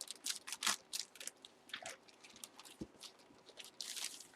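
Crinkling and rustling of plastic wrapping as trading cards are handled: a run of short crackles, several a second, loudest in a cluster near the end, with one soft knock.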